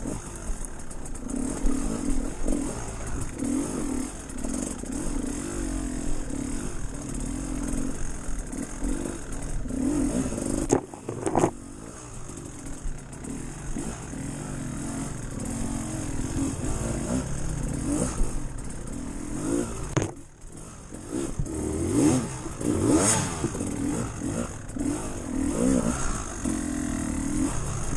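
Off-road vehicle engine working over rough trail, its revs rising and falling unevenly, with clattering from the vehicle. The sound dips briefly twice, about 11 and 20 seconds in.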